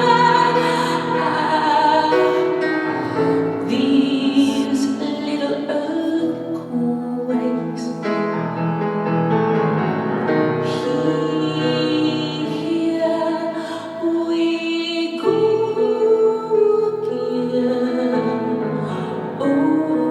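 Live music: a woman singing long, wordless vocal lines over instrumental accompaniment in a rock ballad.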